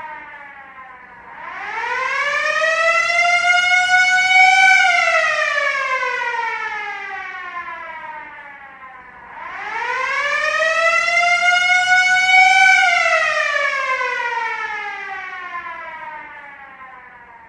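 Siren wailing slowly. Its pitch climbs for about three seconds, then glides down for about four, in two full cycles. The second fall fades away near the end.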